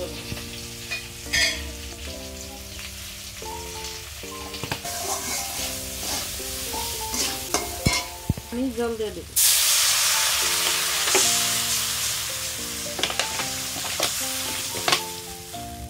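Vegetables sizzling in hot oil in an aluminium wok, with a metal spatula scraping and tapping the pan as they are stirred. About nine seconds in, water poured into the hot wok makes the sizzle jump to a loud hiss that then slowly settles. Background music with held notes plays underneath.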